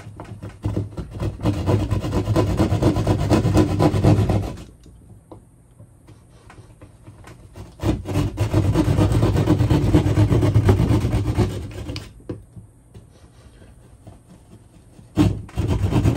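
Drywall knife cutting shallow into drywall along a traced outline: two scraping strokes a few seconds long each, then a sharp click and a third stroke starting near the end.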